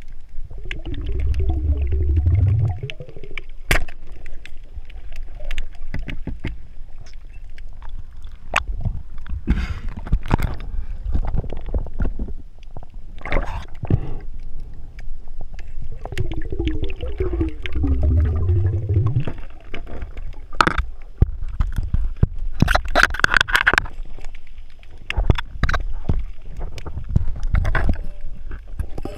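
Underwater sound picked up through an action camera's housing: two long, low, gurgling bubble bursts, about a second in and again about halfway through, with scattered sharp clicks and knocks in between.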